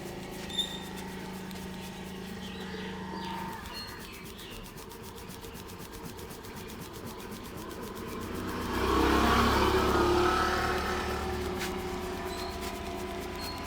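A motor vehicle passing by, its engine and road noise swelling to a peak about nine seconds in and fading over the next few seconds. Before it, a steady low hum stops a few seconds in, and birds chirp faintly.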